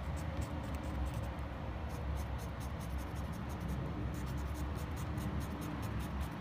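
Felt tip of a red paint marker scratching over a rough stone in rapid, repeated short strokes, over a steady low background rumble.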